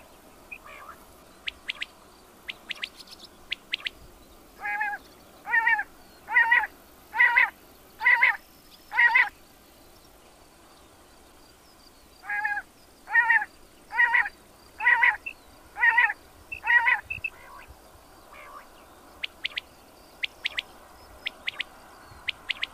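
Quail calling: two series of six loud, evenly repeated calls, each about half a second long and a little under a second apart, with a pause of about three seconds between the series. Faint, short, high chirps come before and after.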